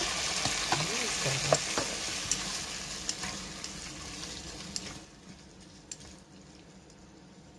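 Cut squid sizzling as it goes into hot oil in a rice cooker's inner pot, stirred with wooden chopsticks that click against the pot. The sizzle dies down about five seconds in.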